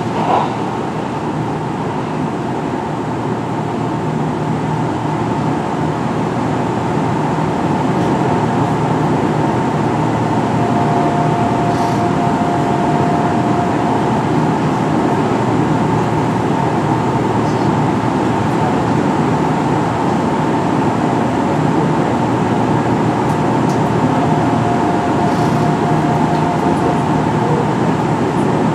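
Kintetsu 1420 series electric train with Mitsubishi GTO-VVVF inverter running, heard on board: steady wheel and motor noise that grows slightly louder over the first few seconds, with a faint steady whine that comes in twice.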